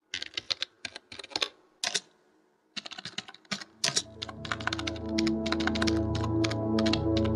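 Typing on a computer keyboard: rapid key clicks in irregular bursts, with a short pause about two seconds in. From about four seconds in, music with a low bass fades in under the typing.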